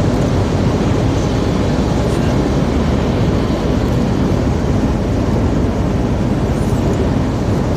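Steady running noise of a truck at motorway speed heard inside the cab: engine drone mixed with tyre noise on a wet road.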